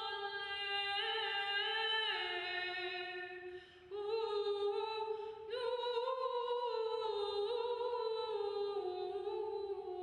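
A woman singing unaccompanied, holding slow, long notes with slight vibrato and stepping between pitches, with a short break for breath about three and a half seconds in.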